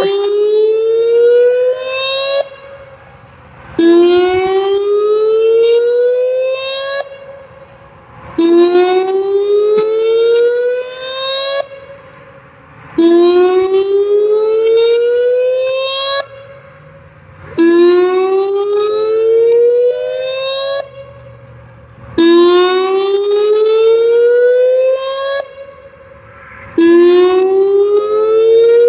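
Whelen WPS-2909 electronic outdoor warning siren sounding its whoop tone: a loud rising sweep about two and a half seconds long that cuts off sharply, repeated about every four and a half seconds, seven whoops in all.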